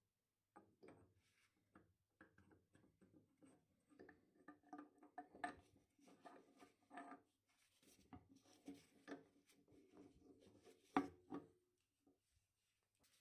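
Faint handling of steel dividing-head parts: a worm shaft with its gear being slid through a rusty sleeve in the cast-iron housing, with soft scrapes, small metal clicks and one sharper knock near the end.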